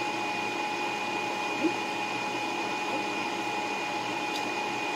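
A steady mechanical whir with two steady tones, like a fan or small motor running. A single short rising squeak sounds about one and a half seconds in.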